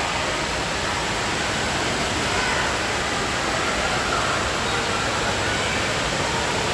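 Steady rush of water in an indoor water park hall, with faint distant voices in the echoing space.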